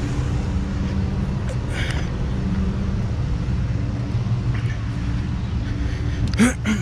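Large diesel engine of an articulated dump truck idling steadily. A short scuffing sound comes near the end.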